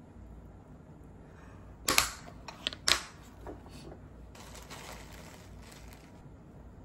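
A table knife clinks sharply against the dishes a few times as the pesto spreading ends and it is set down, then a plastic zipper bag of shredded cheese crinkles as it is picked up and handled.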